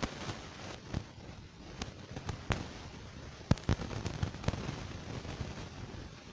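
Irregular sharp clicks and pops over a steady background hiss, the loudest about three and a half seconds in.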